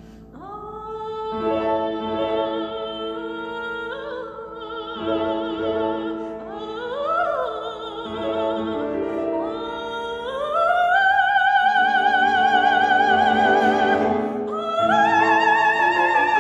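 Classically trained soprano singing a Spanish art song with grand piano accompaniment. Her phrases carry a wide vibrato and grow louder, rising to a long held high note about ten seconds in and another from about fifteen seconds.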